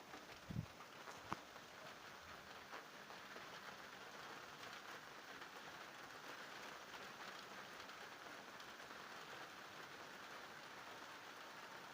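Faint, steady thunderstorm rain falling, with two short knocks about half a second and about a second and a half in.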